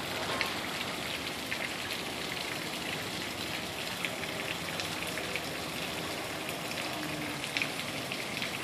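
Steady splashing and trickling of water churned up by a small electric boat's trolling-motor propeller and wake, with scattered small splashes.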